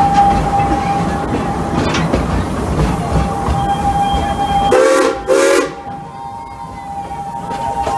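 Steam locomotive giving two short blasts on its steam whistle about five seconds in, over the steady running rumble and clatter of the train on the track. A steady high-pitched whine runs underneath.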